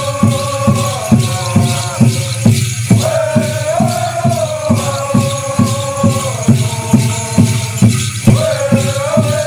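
Animal-dance song: a chorus of voices chanting in unison over a steady beat of about two and a half strokes a second, with the shaking of dancers' rattles. The chant breaks off briefly twice, about two and a half seconds in and near the end.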